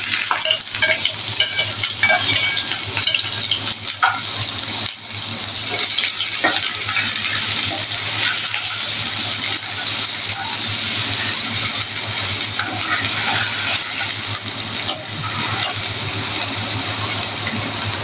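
Chopped onion, ginger and garlic sizzling steadily in hot oil in a kadhai, with a steel ladle scraping and clicking against the pan as it is stirred.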